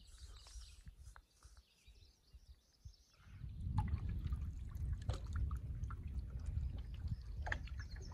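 Faint outdoor ambience, then from about three seconds in a canoe moving across a lake: a steady low rumble of wind on the microphone, water against the hull, and a few sharp knocks.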